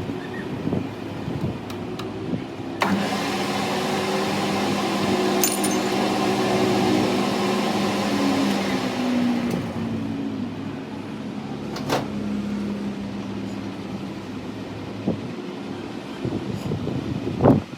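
Workshop machinery running with a steady motor hum. From about three seconds in there is a louder, noisy mechanical spell that fades out with a falling pitch after about ten seconds, like a motor winding down. A few sharp knocks follow.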